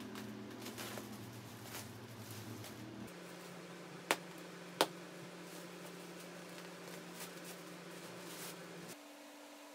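Plastic pillow packaging rustling and crinkling as it is pulled off rolled polyester-fibre pillows, with two sharp clicks about four and five seconds in.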